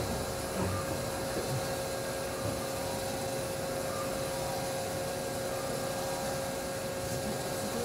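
Inside an Iyotetsu Moha 50 tram standing still at a stop: the car's onboard auxiliary equipment runs with a steady fan-like hum and a steady mid-pitched whine, with no traction-motor or wheel noise.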